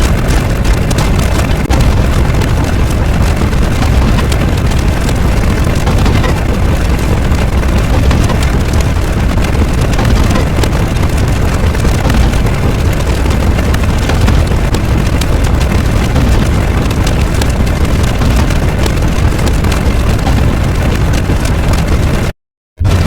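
Loud, continuous rumbling noise, strongest in the deep bass, with no clear tone or beat; it cuts out abruptly for a moment near the end.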